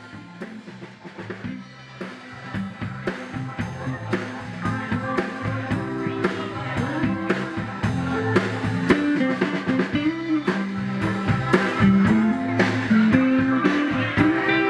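Live band playing an instrumental passage: a drum kit keeps a steady beat under electric bass, electric guitar and keyboards. It fades up from silence and grows louder over the first several seconds.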